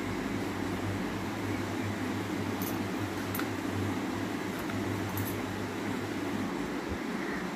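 Steady low mechanical hum with a few faint clicks, the hum dropping away near the end.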